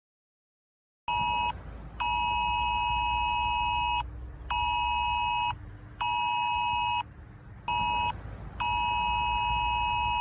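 UK Emergency Alert attention tone from a mobile phone: a loud, harsh two-pitched electronic alarm. It starts about a second in and sounds in on-off stretches, some short and some about two seconds long.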